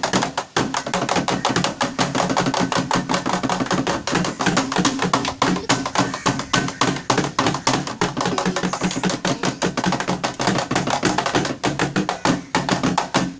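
Music with a fast, steady percussion beat of sharp, knocking strokes.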